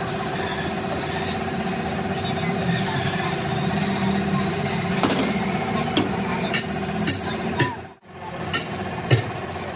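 A steady engine-like hum runs throughout. From about halfway through, a string of sharp knocks and clinks comes roughly every half second, and the sound cuts out for an instant about eight seconds in.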